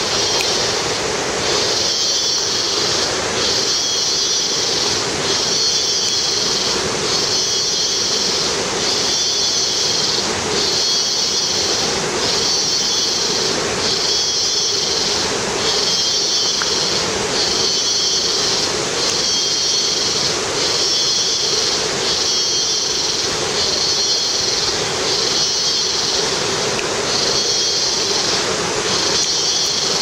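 Insect chorus in tropical forest: a loud high-pitched buzz pulsing about once a second, over a steady rushing noise.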